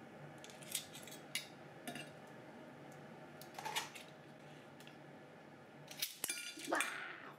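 Metal kitchen tongs clicking and clinking as spaghetti with clams is served from a frying pan onto plates: a few scattered sharp clicks, then a busier cluster with a brief metallic ring near the end. A faint steady hum lies underneath.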